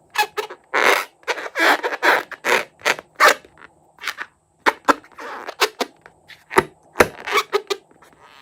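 Slime being squished and mixed: an irregular run of short wet squelches and sticky pops, with a quieter stretch about five seconds in.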